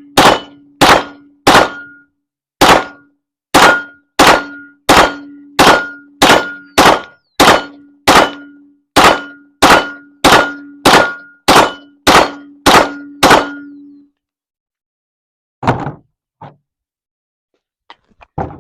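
Glock 17 pistol fired in a steady string of about twenty shots, roughly two a second, each followed by the ring of a steel target being hit. The firing stops a little past two-thirds of the way through, leaving only a few faint knocks.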